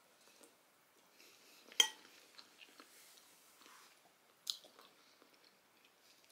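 A person chewing a mouthful of soft food, minced beef bolognese with rice and avocado, with faint wet mouth sounds. A sharp click comes about two seconds in, and a smaller one about four and a half seconds in.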